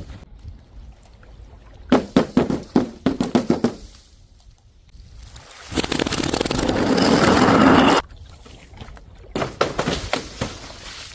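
A quick run of sharp knocks and clatters from hard objects, then a louder rising rumbling scrape for about two seconds that cuts off suddenly, and a few more knocks near the end.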